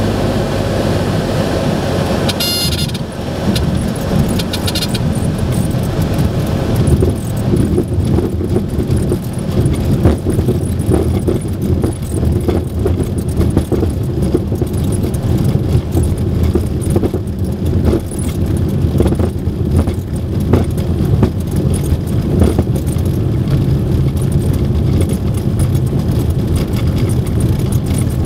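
Beechcraft Bonanza's engine and propeller running at low power, heard inside the cabin during the ground roll on a grass strip, with a steady rumble and the airframe rattling and knocking over the rough turf. A brief high tone sounds about two and a half seconds in.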